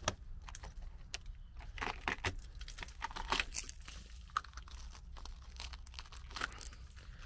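Gloved fingers picking at a rusted-through hole in a 1997 Toyota MR2's sill, breaking away underseal and crumbly rusted steel: irregular crackling, crunching and tearing. The sill is rotten under the underseal.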